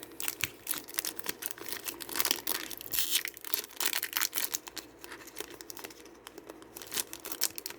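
Foil wrapper of a Pokémon Brilliant Stars booster pack being torn open and crinkled in the hands: an irregular run of crackles and rustles.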